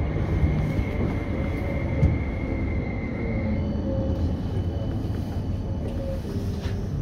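CAF Urbos 3 tram running along street track, heard from the driver's cab: a steady rumble of wheels on rail under a thin electric whine that shifts to higher tones a little past halfway. A single sharp knock comes about two seconds in.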